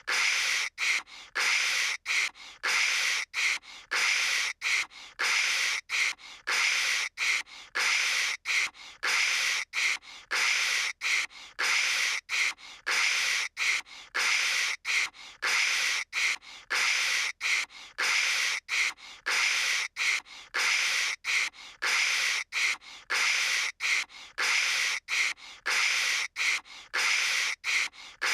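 A cartoon girl's voice imitating telephone static with hissing "kshh" noises, in short bursts a little under two a second with brief gaps, the same pattern repeating over and over.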